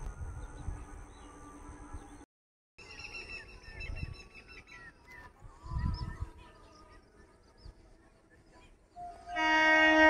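Birds chirping faintly over light outdoor background, then near the end an approaching electric train's air horn starts blowing, a loud, steady multi-note chord.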